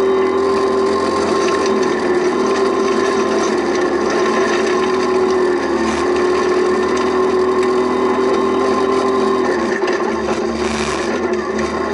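Rally car's engine running hard at high revs, heard from inside the cabin, its pitch shifting a few times through the gears, over the rumble and rattle of gravel under the tyres.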